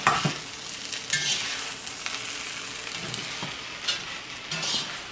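Shrimp and cold cooked rice sizzling in oil in a hot cast iron wok, stirred and scraped along the bottom with a wooden spatula in repeated strokes, with a sharp knock at the very start.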